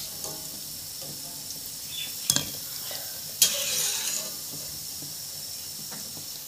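Cauliflower pakoras deep-frying in hot oil, a steady sizzle. There is a sharp click a little past two seconds in, and a louder burst of hissing at about three and a half seconds.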